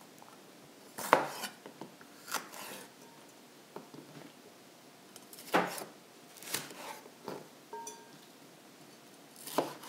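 Chef's knife slicing small sweet peppers on a plastic cutting board: sharp knocks of the blade against the board at irregular intervals, with quiet gaps between.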